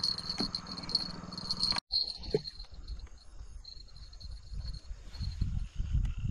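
Night insects chirping steadily in a high, pulsing chorus, with the sound cut short about two seconds in. Dull low thumps come in near the end.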